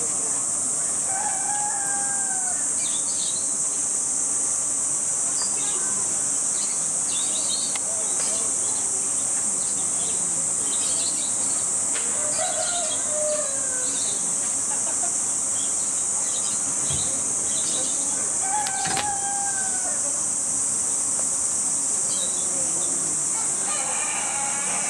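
Steady high drone of summer cicadas throughout, with a rooster crowing three times, near the start, around the middle and about three quarters through, and small birds chirping now and then.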